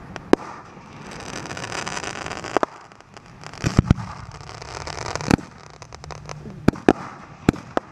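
Fireworks going off: about ten sharp bangs at uneven spacing, three in quick succession near the middle, with stretches of crackling hiss between them as shells and comets rise and burst with glitter.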